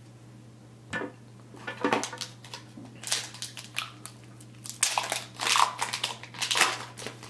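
Crinkly foil wrapper of a hockey card pack rustling and tearing as the pack is opened, in a run of irregular bursts over the second half. A single light knock comes about a second in.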